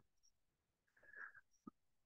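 Near silence: room tone, with a brief faint voice sound about a second in and a small click just after it.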